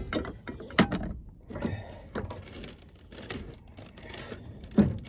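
Metal camp cooking pots being handled and set down: a few knocks and clinks, the loudest near the end.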